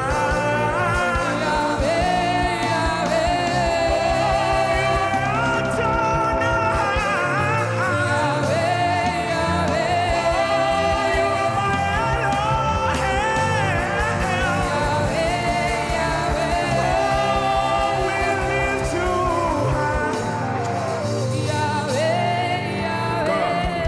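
Live gospel worship music: voices singing a flowing melody over keyboard and a steady drum beat.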